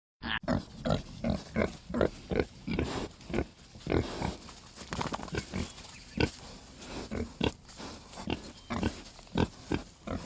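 Pig grunting over and over in short, rapid grunts, about two or three a second.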